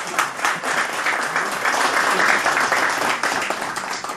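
Audience applauding: many hands clapping in a dense patter that swells in the middle and thins out near the end.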